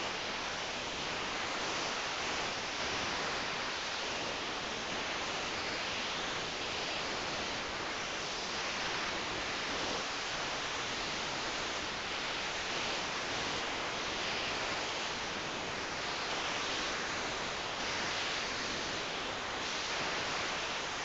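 Steady hiss of even background noise with only faint, irregular swells and no clear rhythm.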